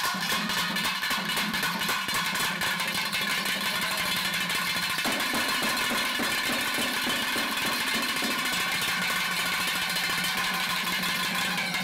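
Live festival drumming: a strapped double-headed drum beats a quick even rhythm under a steady, buzzing held tone from another instrument.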